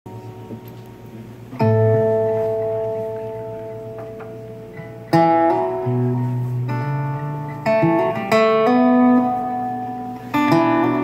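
Solo steel-string acoustic guitar playing a song's opening bars. After a few soft notes, a chord is struck about one and a half seconds in and left to ring out. From about five seconds in, fresh chords come every second or so, with the bass note changing under them.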